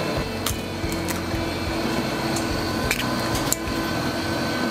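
Steady hum of kitchen background noise with a few light clicks of utensils. Near the end, liquid egg yolk slides with a soft squish out of a tub into a stainless steel bowl.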